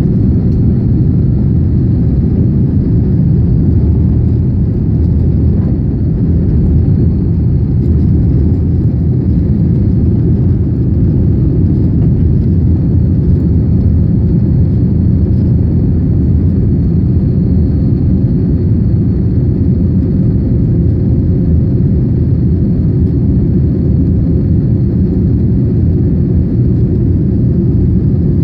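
Airbus A321neo jet engines, a loud steady low rumble that holds at one level without rising or falling.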